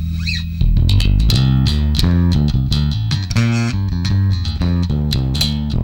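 Ernie Ball Music Man StingRay 4 electric bass played through a Markbass Little Mark Tube 800 amplifier, with the amp's VPF filter turned well up. A held low note rings, then about half a second in a quick run of plucked notes begins.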